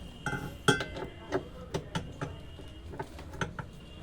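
Irregular metallic clinks and knocks, about a dozen in four seconds, some with a short ringing tone: hand tools and metal parts being handled during a top-load washing machine repair.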